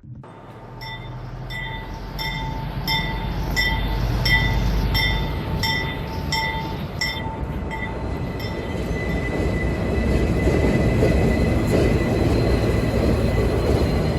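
Subway train sound: a rapid series of beeps, about two a second for roughly seven seconds, then a steady whine over a rumble and rattle that builds up as the train gets moving.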